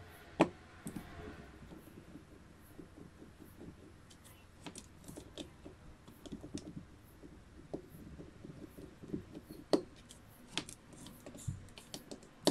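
Small precision screwdriver turning the tiny screws in a ZTE MF910 pocket WiFi modem's plastic case. There is light ticking and scraping throughout, with a few sharp plastic clicks, the loudest about half a second in and near ten seconds.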